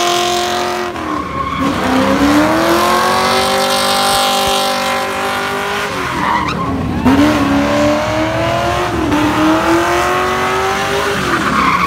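Car doing donuts: the engine is held high in the revs while the rear tyres spin and squeal on the asphalt. The engine pitch dips and climbs back up three times.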